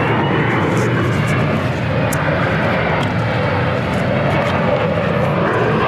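Steady, loud rush of wind and scooter running noise picked up by a small clip-on wireless microphone while riding a scooter down a street.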